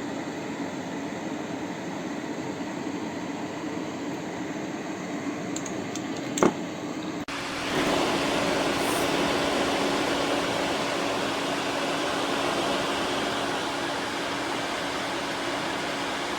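Small fume-extractor fan running steadily: a whirring airflow noise over a low, even hum. There is a sharp click about six seconds in, then a brief break, after which the fan sound returns a little louder with a steadier hum.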